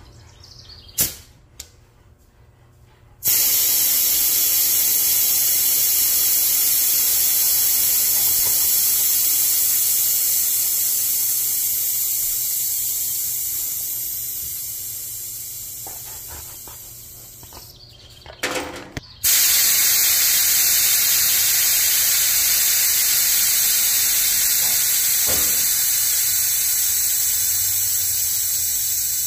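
Compressed air hissing into a Chassis Tech suspension air bag. The hiss starts abruptly a few seconds in and slowly dies away. A short clatter comes near two-thirds of the way through, then the hiss starts again just as abruptly and slowly tapers.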